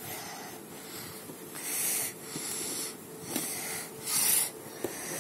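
A person breathing close by in a few short, hissy puffs, with faint light clicks in between.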